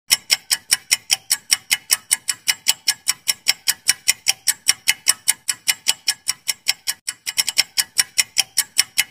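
Clock-style ticking sound effect, about four sharp ticks a second, marking the countdown time to answer a quiz question. Just after seven seconds in there is a short gap, then a few quicker ticks.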